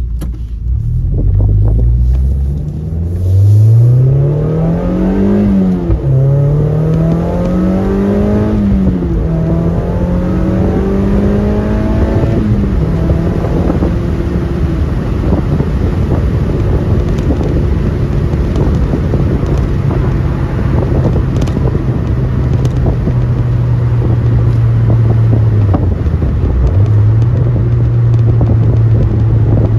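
Mazda MX-5 NC1's four-cylinder engine breathing through a catless Goodwin Racing header and Yonaka muffler, accelerating through the gears: the pitch rises, drops at shifts about 5 and 9 seconds in, climbs again, then holds steady at a cruise. A few seconds before the end the pitch dips briefly and comes back up.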